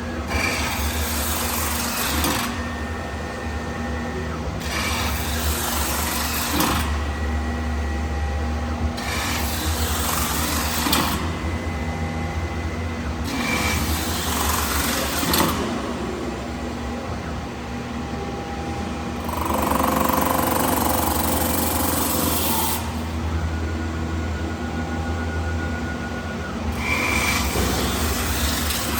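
CNC metal spinning lathe running, with a steady low motor hum. A rasping noise comes and goes in repeated passes about two seconds long, every four to five seconds.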